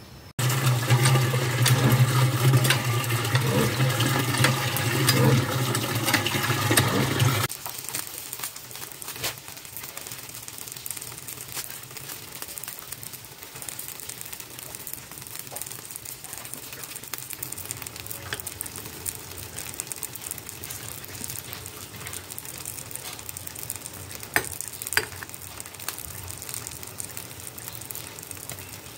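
Mushrooms boiling in a pot on a gas burner: loud bubbling over a steady low hum, which stops abruptly about seven seconds in. Then quieter bubbling, with a few clinks of a metal ladle against the enamel pot near the end.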